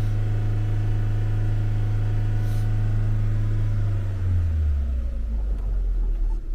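Car engine running at raised revs with a steady low drone, then dropping back toward idle about four seconds in. The car has just been jump-started after its battery went flat and is being run to recharge it.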